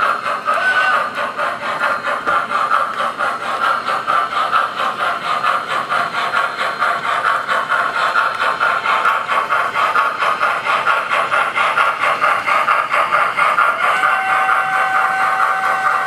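O-gauge MTH 2-8-0 Consolidation model steam locomotive with Proto-Sound 2 electronics running, its speaker giving a fast, steady steam chuff over the clatter of wheels on the track. About two seconds before the end a steam whistle starts and holds one long, steady note.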